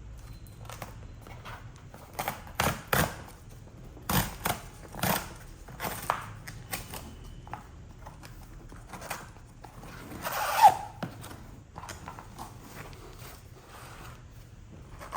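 Hands opening a laptop's cardboard and paper packaging: scattered clicks, scrapes and rustles, with a louder scrape and a short squeak about ten seconds in.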